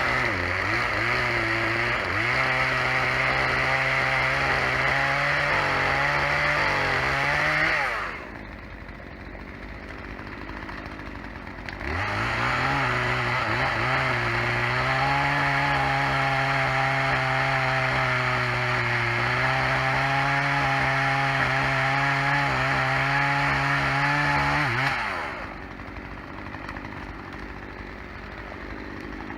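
Two-stroke chainsaw held at full throttle through two long cuts, the first about eight seconds and the second about thirteen, with the pitch sagging and wavering under load. Between and after the cuts it drops back to a quieter idle.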